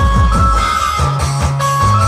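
Dhumal band music: an electric Indian banjo (bulbul tarang) plays a held melody line over deep, sustained bass notes that step to a new pitch every half second or so.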